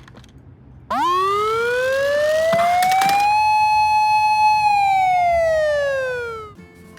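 Toy ambulance's electronic siren sounding a single wail, starting about a second in: the pitch rises for a couple of seconds, holds briefly, then falls and cuts off suddenly.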